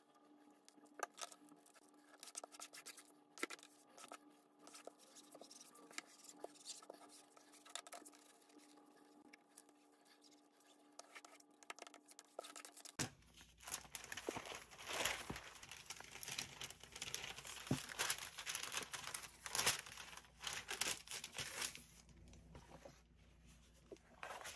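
Bookcloth and paper rustling and scraping as they are handled and smoothed down with a bone folder over a freshly glued book case, with scattered light taps. It is faint and sparse at first, then becomes louder and denser about halfway through.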